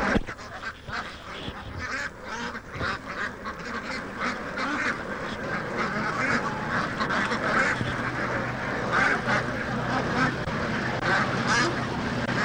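A large, crowded flock of white Pekin ducks quacking, many calls overlapping in a dense, continuous chatter.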